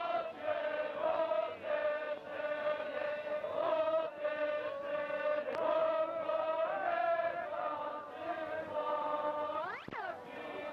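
Voices chanting on one steady, held pitch in short repeated phrases. Near the end a brief sweeping sound dips and rises again.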